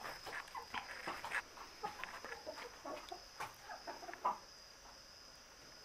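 Broody hens giving a string of short, soft clucks that die away about four seconds in, over a steady chirring of crickets.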